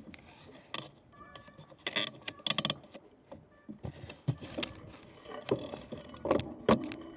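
Mountain bike rolling over a wet paved street: irregular knocks and rattles as it jolts over bumps, over a steady hiss of tyre and road noise.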